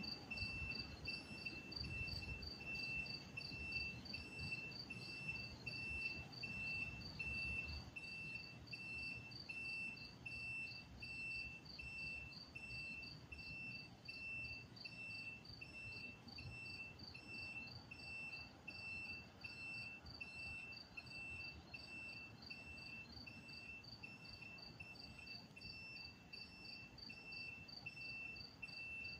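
Crickets chirping in steady, even rhythms at two different pitches, over a faint low rumble that is strongest in the first several seconds.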